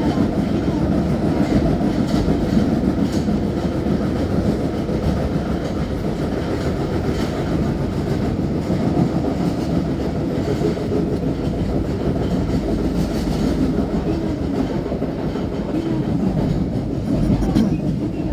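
Running sound of an Osaka Metro 30000A series subway train heard inside the car: a steady rumble of wheels on rail at speed, with a few faint clicks spread through it.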